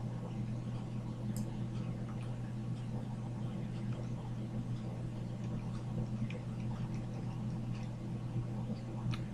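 Steady low hum of the desk recording setup, with a few faint sharp clicks, one about a second and a half in and another near the end.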